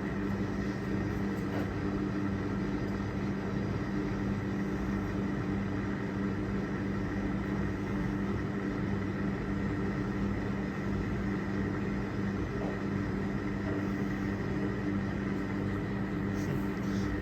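Vulcan Dishlex Mk8 dishwasher's drain pump running steadily through its final drain, a constant even hum.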